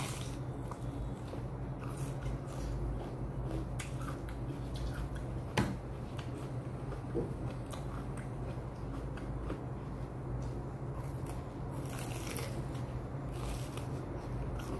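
Biting and chewing raw bitter melon: crisp crunches and wet chewing, with one sharper crunch about five and a half seconds in.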